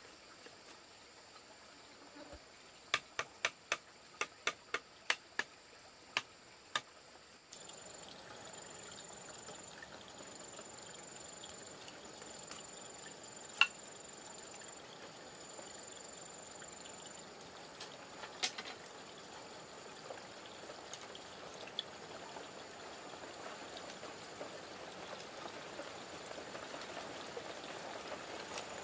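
Thin split-bamboo strips clicking and tapping against one another as they are woven by hand into a lattice. A quick run of about ten sharp clicks comes a few seconds in, then a few scattered ticks over a steady hiss and a thin high whine.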